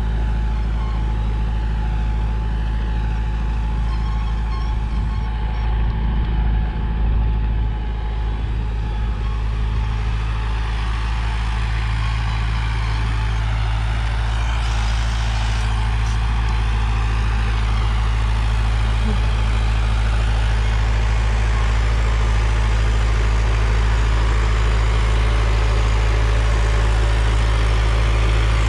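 Preet 6049 Agritrac tractor's diesel engine running steadily under load while pulling a harrow through the field, growing slightly louder near the end.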